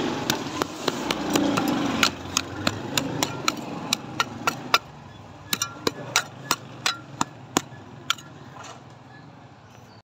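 Loose soil scraped and poured over a freshly filled grave, with a run of sharp knocks, about three a second, as hard pieces of brick and stone are struck and set in place. The scraping fades about halfway through while the knocks go on.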